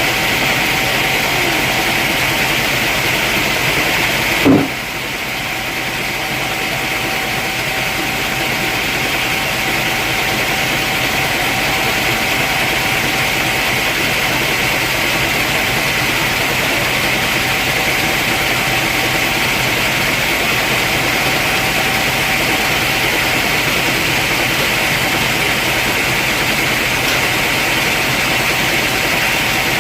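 Sawmill machinery running steadily: a constant mechanical drone with a thin, steady whine. A single sharp knock comes about four and a half seconds in, after which the noise drops briefly and builds back up.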